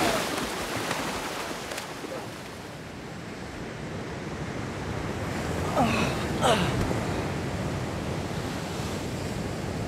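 Sea surf breaking and washing steadily, with a splash at the very start. About six seconds in, two short cries slide downward in pitch.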